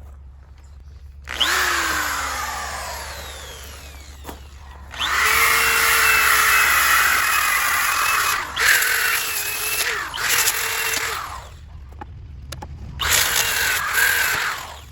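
Electric power sander running on a live-edge wood slice in several runs. A short burst about a second in winds down with falling pitch. A longer steady run follows with brief dips, then a last short run near the end.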